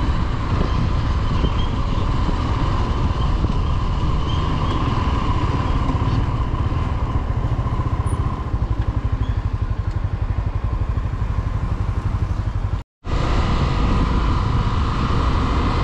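Small-displacement motorcycle engine running steadily while riding. The sound cuts out completely for a moment about 13 seconds in.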